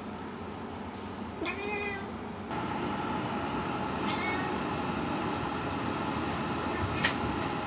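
A house cat meowing twice: a short meow about one and a half seconds in, and a briefer, fainter one about four seconds in.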